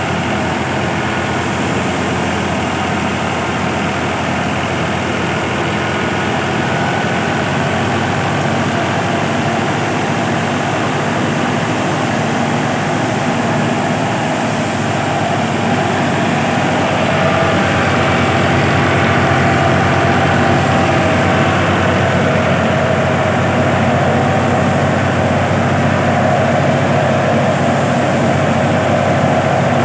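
Fiat tractor's diesel engine running steadily under way, getting somewhat louder about 17 seconds in.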